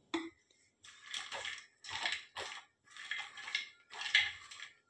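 Spatula stirring makhana, cashews and almonds around a metal kadai in a little hot ghee. The nuts rattle and the spatula scrapes the pan in repeated strokes, about one a second, starting about a second in, as the dry fruits are lightly roasted.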